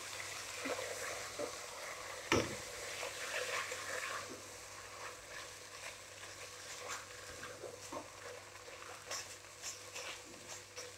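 Black plastic spatula stirring and scraping a wet mix of shredded chicken and yogurt in a non-stick pot, with soft scattered taps over a faint sizzle. One sharper knock comes a little over two seconds in.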